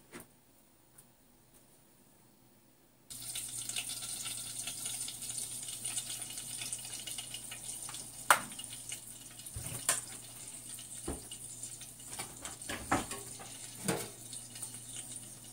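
Steady hissing from pots cooking on a gas stove, starting abruptly about three seconds in after near silence, with scattered clicks and knocks of cookware.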